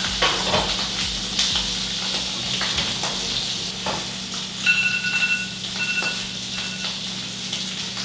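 Food sizzling as it fries in a pan, with a few light knocks. About halfway through, an electronic kitchen appliance starts beeping: one longer beep, then two shorter ones.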